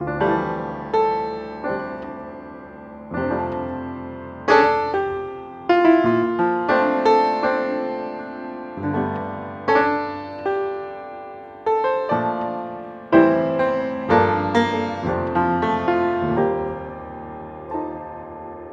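Background piano music: slow, gentle notes and chords struck one after another, each dying away before the next.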